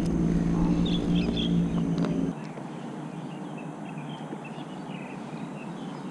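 A low steady hum with several evenly spaced tones cuts off suddenly a little over two seconds in, leaving quieter outdoor background with small birds chirping.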